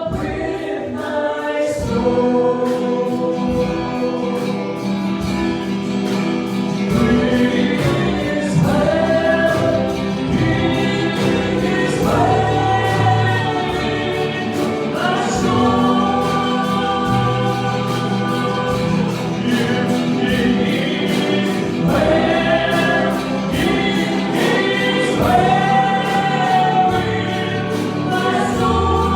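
A gospel choir singing with instrumental accompaniment, sustained bass notes under the voices and a steady beat.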